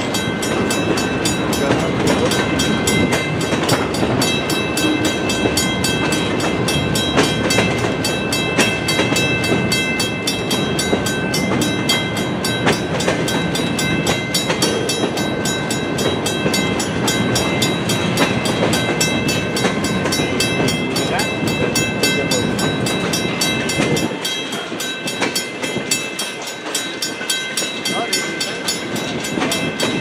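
Freight cars of a long train rolling past a level crossing with steady wheel rumble and clatter over the rails, under a level-crossing bell ringing. The low rumble thins out about four-fifths of the way through.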